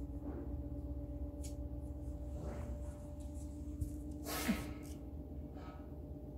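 Papillon puppy sniffing around its blankets: a few short breathy sounds, the loudest about four and a half seconds in, over a steady electrical hum.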